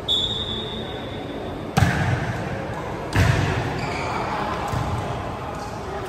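A referee's whistle blows one steady blast of about a second and a half to start the rally. Then a volleyball is struck hard twice, about a second and a half apart, each smack echoing in the hall.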